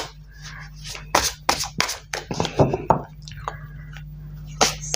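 A deck of tarot cards being shuffled and handled: an irregular run of quick snaps and flicks of card stock, with a steady low hum underneath.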